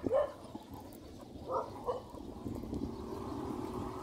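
A dog gives a few short barks, about a second and a half in, with a steady low hum building behind it in the second half.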